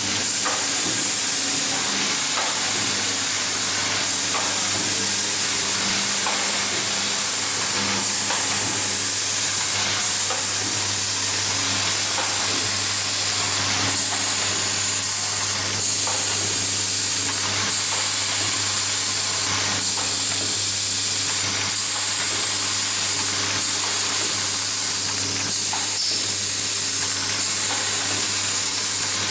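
Automated screw-driving assembly machine running with its vibratory bowl feeder: a steady low hum under a constant hiss, with faint clicks of the mechanism here and there.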